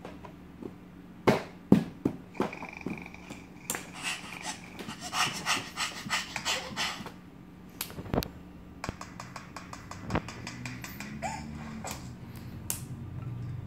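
Baby laughing hard in bursts and clapping her hands, with two loud sharp claps near the start and a quick run of smaller claps later on.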